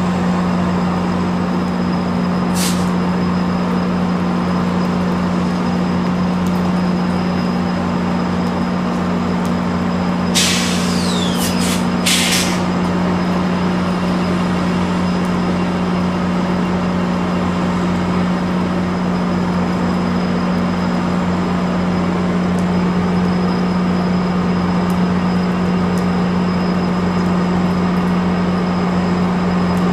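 GO Transit commuter train's diesel locomotives idling at a standstill with a steady low hum. Short bursts of air hissing come from the train's air system about three seconds in and twice more around ten to twelve seconds in.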